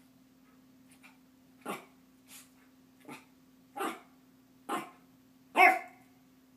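Long-haired Chihuahua barking in short, sharp single yaps, about one a second and growing louder, the loudest near the end: play barking at the other dog. A faint steady low hum runs underneath.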